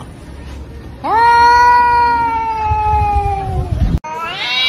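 Domestic cat giving one long drawn-out yowl, nearly three seconds: the pitch climbs fast at the start, then holds and sinks slowly. It is the standoff cry of a cat facing another cat. Near the end, after an abrupt cut, another cat's yowl begins, rising in pitch.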